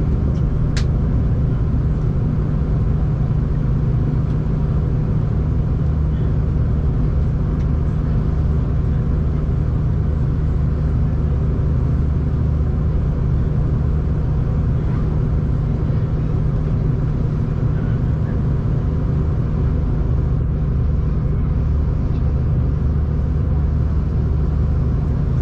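Steam-hauled excursion train running along the track, heard from aboard: a steady low rumble, with one sharp click about a second in.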